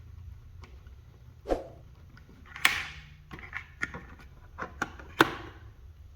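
A series of scattered clicks and knocks, about eight, with a short noisy scrape a little under three seconds in and the loudest knock about a second before the end, over a steady low hum.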